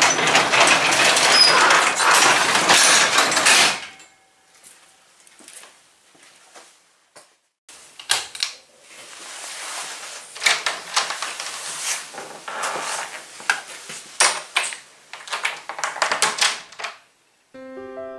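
Roll-up garage door being pulled down, rattling loudly for nearly four seconds. After a pause comes a run of clicks and knocks as a door knob and latch are handled.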